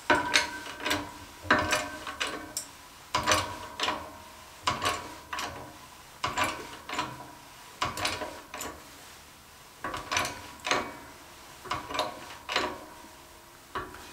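A hand-worked press bending bicycle tubing in a 3D-printed bending die, stroke by stroke: clicks and creaks, often in pairs, come about every second and a half as the ram is pushed down and the die presses the tube into a curve.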